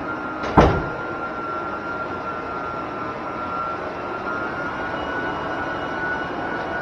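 Electric high-speed floor burnisher running steadily on vinyl composition tile, its motor giving a steady high whine over the pad's even rushing noise. A single sharp thump about half a second in.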